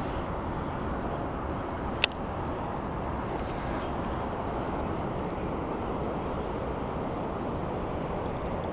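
Steady, even outdoor background noise, with one sharp click about two seconds in.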